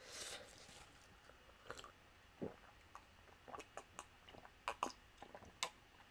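Faint mouth sounds of someone drinking from a plastic cup close to the microphone: a soft gulp about two and a half seconds in, then scattered wet clicks and swallows. A soft rustle opens it.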